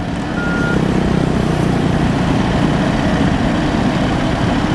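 Backhoe's diesel engine running steadily under load. Its reversing alarm beeps once in the first second and then stops.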